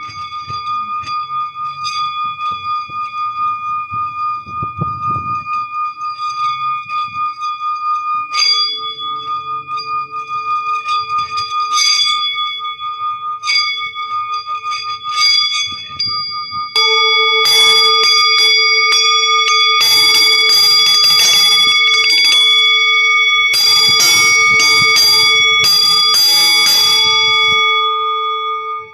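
Singing bowls ringing with a steady, wavering tone and overtones, struck again a few times. About two-thirds of the way in, a rapid, loud flurry of ringing strikes begins, like an alarm bell, and runs for about ten seconds before stopping.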